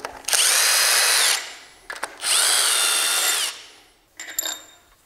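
Cordless power driver spinning out cylinder head bolts in two short runs of about a second each, its motor whine rising as it spins up and dropping away as it stops. A few light clicks follow near the end.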